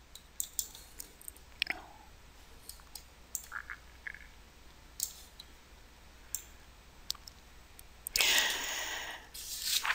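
Scattered faint clicks of a computer mouse as the document is scrolled. A louder burst of noisy hiss lasting about a second comes near the end.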